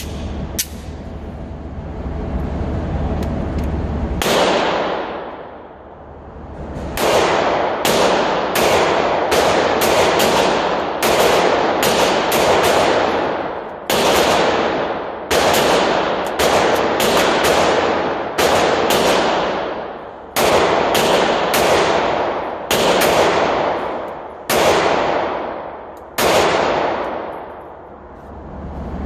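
Sig P365 pistol firing strings of shots about half a second apart, with short pauses between strings. Each shot is followed by a long echo off the hard walls of an indoor range.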